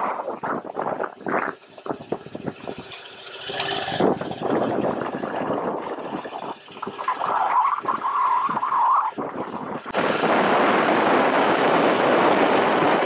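Wind buffeting a helmet-mounted camera's microphone on a motorcycle riding at low speed. It is choppy and gusty at first, then from about ten seconds in it becomes a steady, loud rush.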